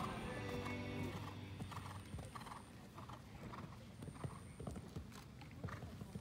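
Horse cantering on a sand arena, its hoofbeats coming in a loping stride rhythm. Music plays over the first second or so, fades, and comes back at the very end.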